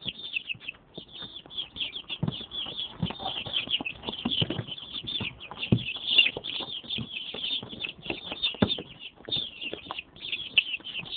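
A box of young chicks peeping without pause, many short high chirps overlapping, with scattered light knocks among them.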